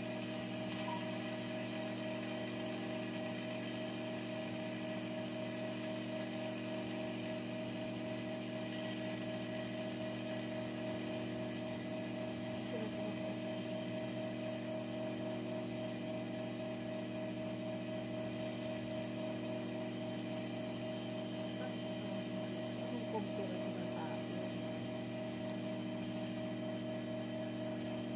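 A steady electrical hum, unchanging in pitch and level, with no sound of stitching.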